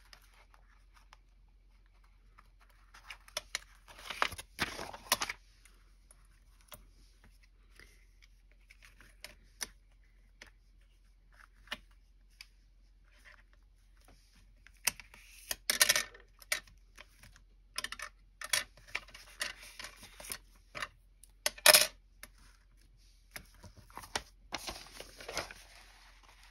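Sheets of paper being handled and rustled on a desk: scattered light taps and clicks with short bursts of rustling, the louder ones about four, sixteen and twenty-two seconds in.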